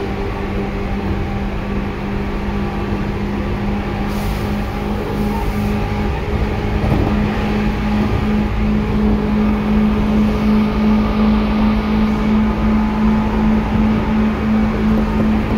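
Seibu 2000 series electric train running, heard from inside the car: a strong steady motor hum over a dense running rumble. The hum steps slightly higher in pitch about six seconds in, and the level grows and pulses regularly through the second half.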